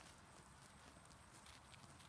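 Alpacas grazing: faint, irregular clicks and small tearing sounds as they crop grass.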